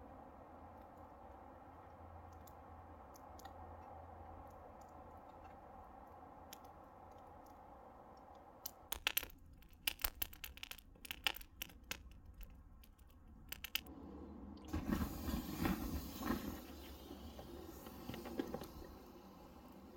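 Faint steady background, then a wood campfire crackling with sharp, irregular pops. Then water is poured onto the smouldering embers to put the fire out: a denser, louder sizzling and splashing.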